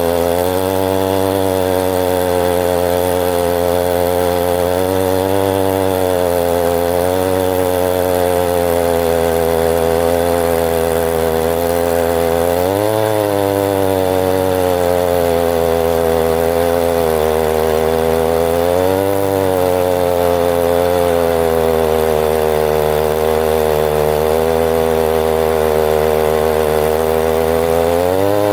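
Stihl two-stroke chainsaw running at high speed while bucking a large red oak log, its engine pitch sagging and wavering under load, with brief rises in pitch twice midway and again near the end.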